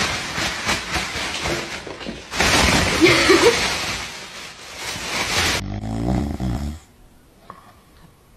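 A thin plastic carrier bag rustling and crinkling as it is shaken and handled, with a brief rising squeak about three seconds in. After about five and a half seconds it gives way to a bulldog snoring, lying asleep face-down on the floor.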